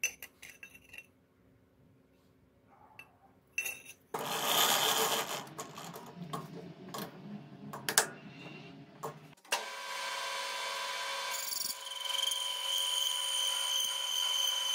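Light clinks of a sheet-metal disc being handled, then a few seconds of rasping and clicking as a chuck key turns the three-jaw chuck of a metal lathe to clamp the disc. About nine and a half seconds in, the lathe starts and runs steadily, with a high whine joining a couple of seconds later.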